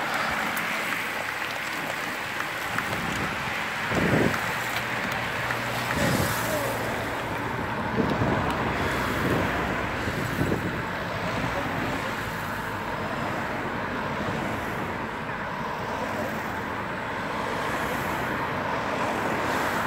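Race convoy cars passing close by one after another, each a brief swell of engine and tyre noise; the loudest pass about four, six and eight seconds in. These are team support cars carrying spare bicycles on roof racks.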